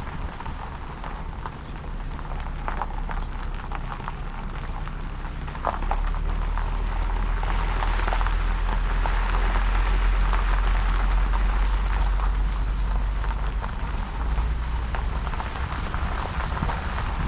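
A vehicle on the move: a steady low rumble under a hiss of road or rain noise, growing louder about six seconds in.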